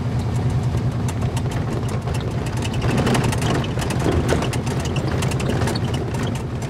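Buggy engine running with a steady low drone while driving, with many small rattles and knocks over it.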